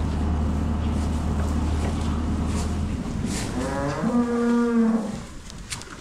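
A dairy cow mooing once, about three and a half seconds in: a single call that rises in pitch and is then held for about a second. Before it, a steady low hum stops about three seconds in.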